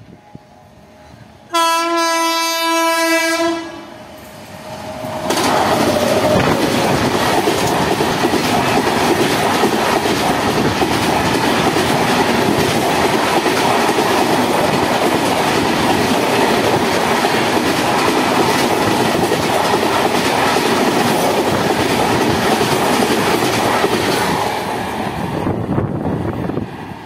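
An Indian Railways express train's locomotive sounds its horn once for about two seconds, then the train passes close at speed, its wheels clattering over the rail joints in a loud, steady rush that dies away near the end.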